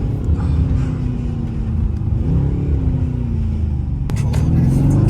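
Mercedes-AMG C63 S engine heard from inside the car while driving: the engine note holds and then falls off as the car eases off, with a short sharp click a little after four seconds in. Near the end it begins to rise again as the car accelerates.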